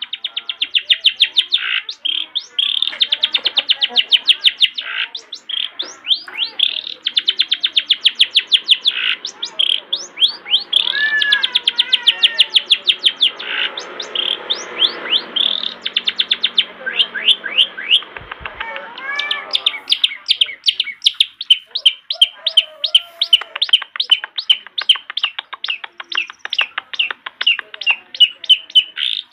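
Long-tailed shrike (cendet) singing vigorously: fast strings of short, repeated notes, with a more varied stretch of changing phrases in the middle.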